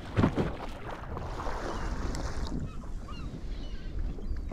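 Wind buffeting the microphone over water lapping around a small boat, with a sharp knock just after the start.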